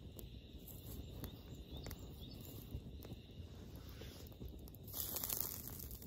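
Wood fire burning in an open fire pit, with scattered small crackles and pops over a low rumble of flames. A brief louder rustling hiss about five seconds in.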